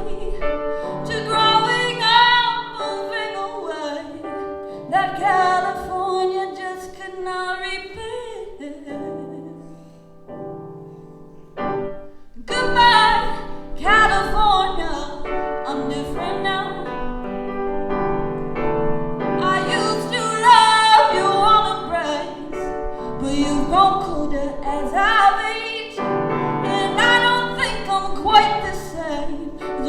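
A woman singing a slow singer-songwriter ballad to her own piano accompaniment. About nine seconds in the voice falls away for a few seconds, leaving soft piano, then the singing returns.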